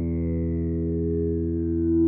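Electric guitar played through a Playwell Tank-G multi-effects unit on its preset 3D, a held distorted chord ringing on and slowly sustaining.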